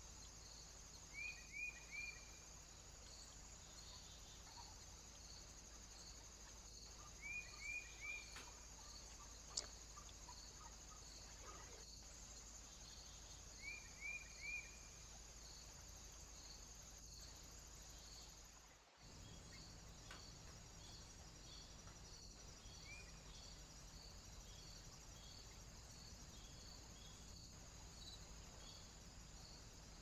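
Faint steady chirring of insects with a regular pulse about twice a second, over which a small bird gives a short call of three quick falling chirps, three times in the first fifteen seconds.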